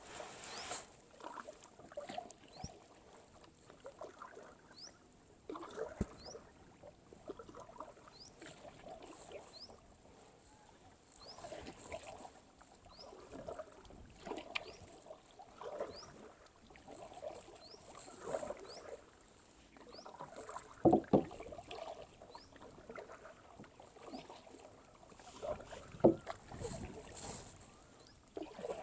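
Kayak paddle strokes dipping and swishing through calm water, a stroke every second or so, with a few sharp knocks, the loudest two about two-thirds of the way through and near the end.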